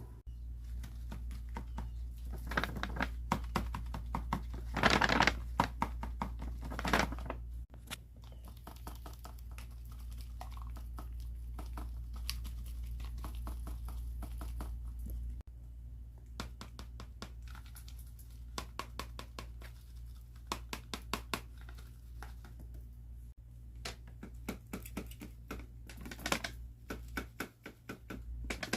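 Folded paper dragon puppets being worked: the paper snaps, clicks and crinkles in quick runs of dry clicks, with two louder crinkling bursts in the first quarter. A steady low hum lies underneath.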